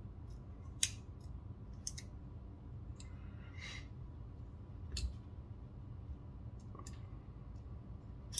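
Several sharp clicks, a second or two apart, from a Benchmade Mini Bugout folding knife as its blade and Glow Rhino axis lock are worked by hand, with a brief swish about three and a half seconds in.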